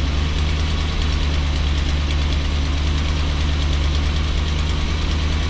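Motorhome's gasoline V8 engine idling steadily on fast idle while it warms up, heard from inside the cabin with the engine cover open, with an exhaust leak that is audible inside the coach.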